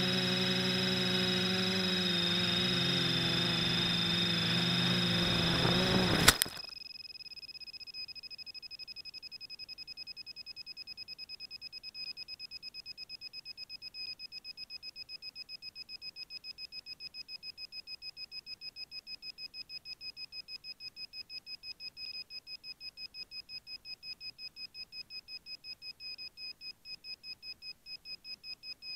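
Neewer FPV quadcopter's motors and propellers whining, their pitch shifting, then a sharp impact about six seconds in as it crashes into the grass and the motors cut out. After that the downed quad beeps rapidly and steadily, about four or five high beeps a second.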